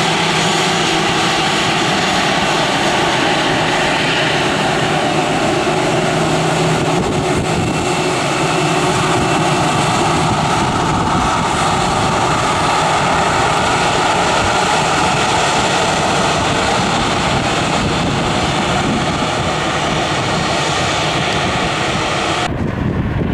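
Airbus A320 turbofan jet engines running at low taxi power as the airliner taxis past: a steady, loud rushing noise with a constant whine. The sound cuts off abruptly near the end.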